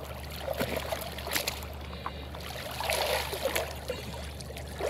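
Sea water sloshing and splashing right at the phone's microphone held on the surface, with many small splashes, drips and trickles as a swimmer moves up close.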